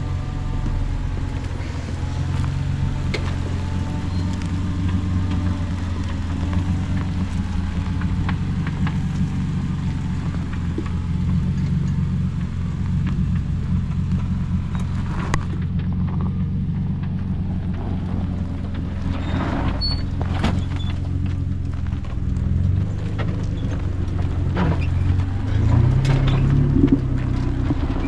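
Four-wheel-drive vehicle's engine running at low revs, with scattered knocks and clunks around the middle and the engine note rising briefly near the end.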